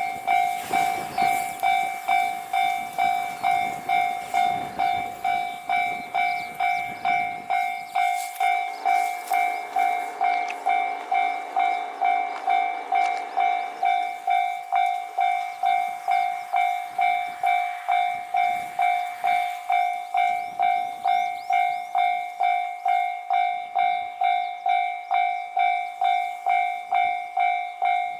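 Japanese railway level crossing alarm ringing its electronic bell evenly, about twice a second. Under it, the noise of a KiHa 261 series diesel limited express train on the line, heaviest over roughly the first half.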